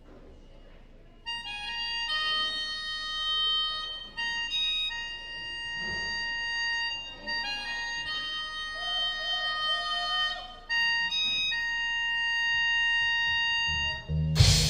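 Keyboard with an organ sound playing sustained chords, starting about a second in and changing chord every two to three seconds. The full band comes in with drums right at the end.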